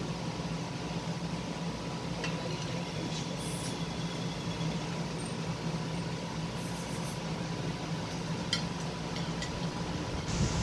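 Steady low mechanical hum of a running room appliance, with a few faint clicks about two seconds in and again near the end.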